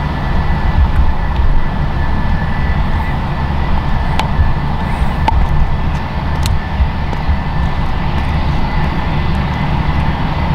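Airbus A319-131's twin jet engines running at low power as the airliner rolls along the runway after landing: a steady high whine over a dense low rumble.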